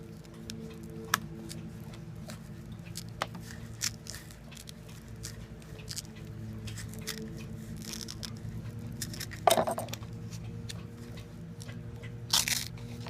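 Velcro tape being wound and pressed around a metal folding-stock bar: small clicks and rustles of handling over a steady low hum, with two louder scratchy rasps of the tape near the end.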